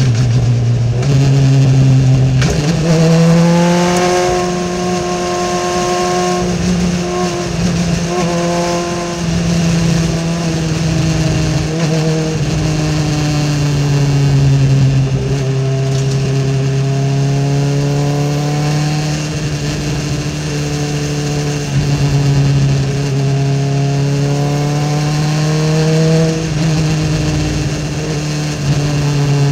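Race car engine heard from inside its open cockpit, running steadily at moderate revs on a slow lap, with wind hiss over it. Its note steps up about two seconds in, drifts slowly lower, and steps back down near the end.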